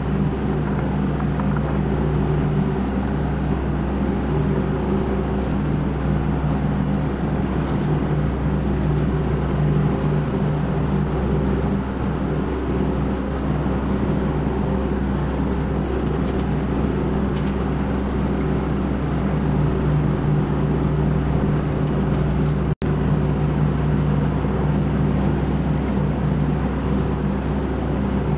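Steady workshop machine hum, an electric motor drone with a low, even hum that does not change, briefly cutting out for an instant about three-quarters of the way through.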